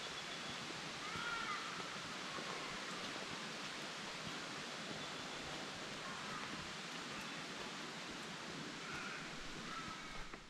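Steady outdoor bush ambience: an even hiss, with a few short faint bird calls about a second in and again near the end.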